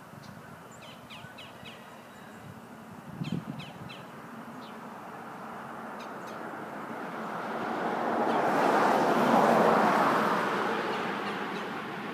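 Birds call a few times, with a brief low thump about three seconds in. Then the rushing noise of a passing vehicle swells to a peak near the end and eases off.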